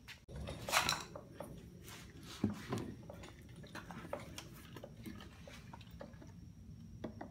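Light clicks, taps and scraping from handling a vintage chainsaw and a plastic fuel can spout while readying the saw for fuel. A brief scrape comes about a second in, and a sharper knock a little later.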